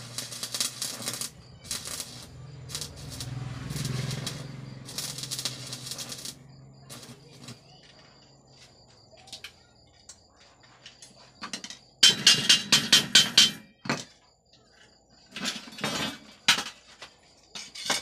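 Homemade microwave-oven-transformer arc welder: the arc crackles and sputters over a low transformer hum, then stops about six seconds in. About twelve seconds in comes a quick run of half a dozen loud sharp cracks, and a few more shortly after.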